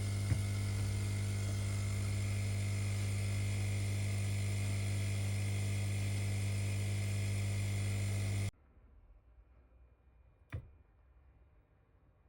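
Steady electrical mains hum with a buzz. It cuts off suddenly about eight seconds in, and a faint single click follows.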